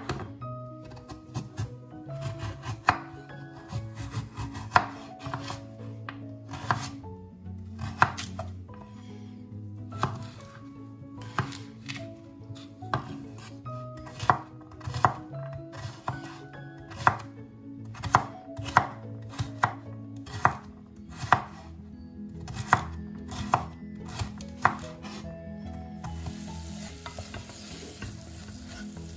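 Chef's knife chopping a carrot on a wooden cutting board: sharp knocks of the blade on the wood, irregular, at times two or three a second. Near the end this gives way to onion and celery sizzling in a pot as they are stirred with a wooden spoon.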